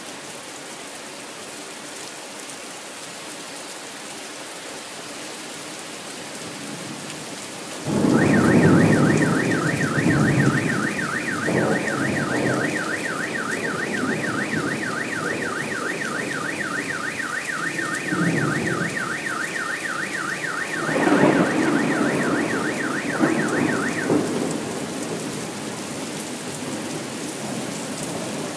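Steady rain falling through a thunderstorm. About a quarter of the way in, thunder breaks loudly and rumbles, with more rumbles later. A car alarm starts with the first thunderclap, a fast repeating warble that goes on for about sixteen seconds and stops abruptly.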